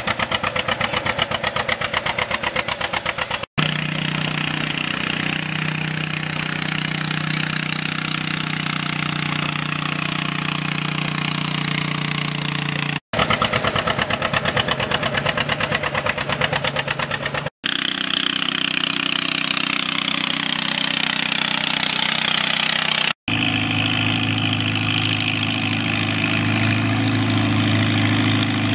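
Antique farm tractor engines working under load while pulling a weight sled, in several clips joined by abrupt cuts. At the start the unstyled John Deere's two-cylinder engine runs with a rapid, even popping exhaust beat; in the other clips the engine note is a steadier drone with a whine that slides up and down, and near the end a red Farmall is working.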